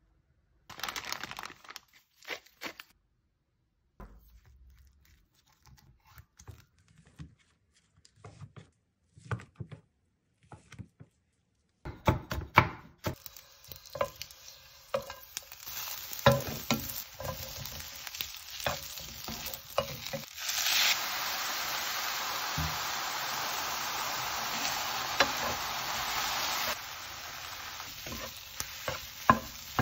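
Food frying in a nonstick pan, first sausages in oil and then sliced fish cake in a sauce, while wooden spatulas knock and scrape against the pan. Sparse light clicks at the start give way to a steady sizzle that is loudest for several seconds in the second half, then settles to a softer sizzle with a few spatula clacks near the end.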